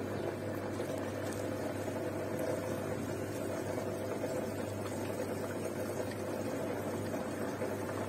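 Zanussi washing machine's drain pump running with a steady hum while water gurgles through it.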